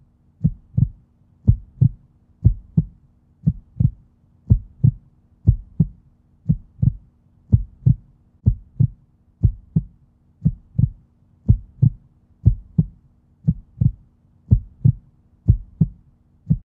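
Heartbeat sound effect: paired low thumps, a lub-dub about once a second, over a faint low hum, stopping abruptly near the end.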